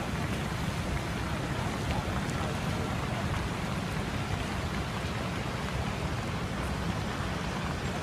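Steady rushing hiss of fountain jets splashing into a lake, with a crowd's voices faintly in the background.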